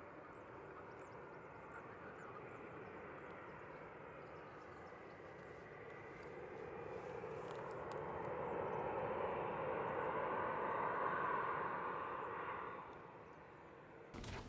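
Twin-engine jet airliner landing: jet engine noise that swells to a peak as it passes close about ten seconds in, then fades and cuts off abruptly just before the end.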